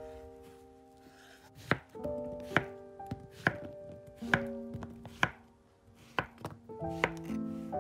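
Chef's knife chopping a zucchini into chunks on a cutting board: sharp knocks of the blade hitting the board, about one a second. Soft background music plays underneath.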